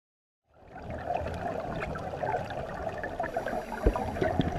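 Muffled underwater sound picked up by a camera in its waterproof housing, starting about half a second in: a steady wash of water with crackling bubbles from divers' exhalations, and a dull thump about four seconds in.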